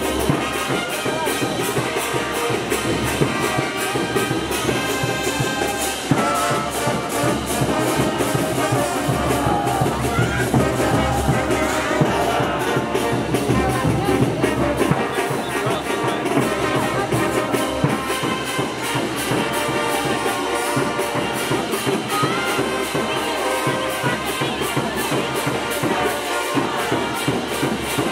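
Brass band playing tinku music: trumpets and trombones over drums, with a steady beat.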